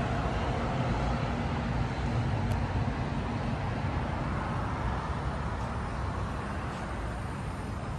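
Steady hum of city traffic, an even background noise with no single vehicle standing out.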